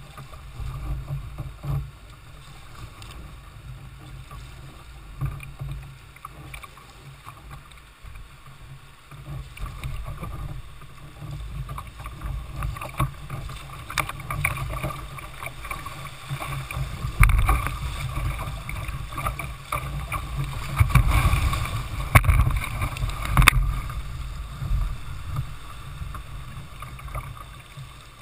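Jackson Coosa kayak running from calm water into a whitewater rapid: rushing water and splashing against the hull, with a low rumble. It grows louder about halfway through and is loudest about two-thirds of the way in.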